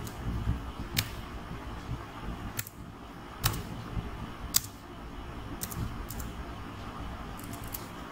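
Computer keyboard keys pressed slowly one at a time: sharp separate clicks about a second apart, over a steady low hum.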